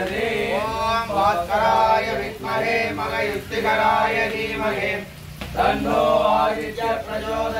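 Men's voices chanting Sanskrit mantras over the sacrificial fire, with a short break about five seconds in.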